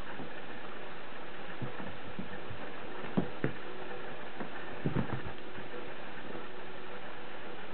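Soft thumps of cats' paws landing on a carpeted floor as they pounce during play, a pair about three seconds in and a small cluster about five seconds in, over a steady hiss.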